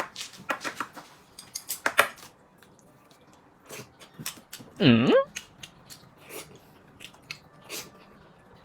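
Chopsticks and tableware clicking and clattering during a meal, with chewing. About five seconds in there is one short vocal sound that dips and then rises in pitch.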